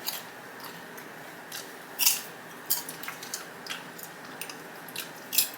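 Close-miked chewing of a sub sandwich with crisp vegetables: a run of short, sharp crunches and wet mouth clicks, the loudest about two seconds in.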